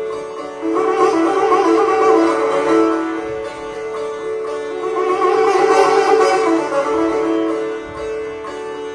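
Solo sitar playing Indian classical music: a melody of plucked notes over a steady ringing drone from the instrument's resonating strings. The playing swells into two louder runs of notes.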